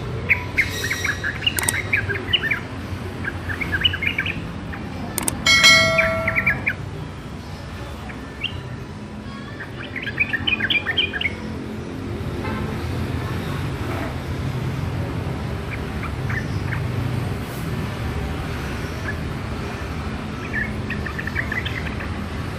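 A young sooty-headed bulbul (trucuk) in its learning stage, singing short, rough bursts of quick twittering notes with pauses between them: immature practice song. About five seconds in, a brief, louder squeaky tone is the loudest sound, over a steady low background hum.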